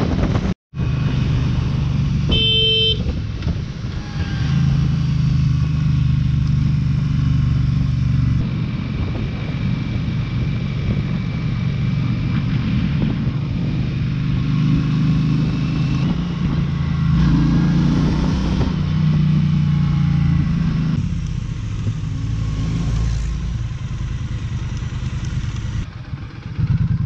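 Motorcycle engine running steadily while riding at road speed, heard from the rider's seat, its note stepping to a different pitch a few times. A short horn toot sounds about two and a half seconds in.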